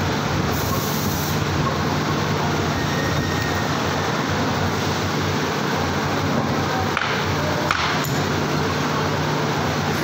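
Steady machinery noise of a factory floor: an even hiss with a low hum under it, and a couple of faint clicks about seven seconds in.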